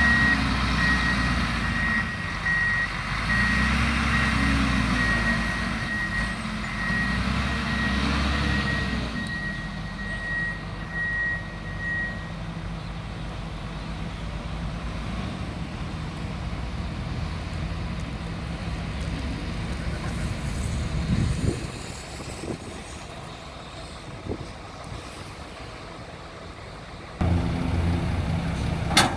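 Diesel engine of a bagasse-pushing tractor running and revving up and down, with its reversing alarm beeping steadily. About twelve seconds in the beeping stops and the engine settles to a quieter steady run, getting louder again near the end.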